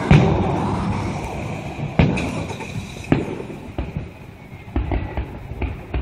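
Aerial fireworks shells bursting: a loud boom right at the start, another about two seconds in and a third a second after that, each trailing off in a rolling echo, then several fainter bangs.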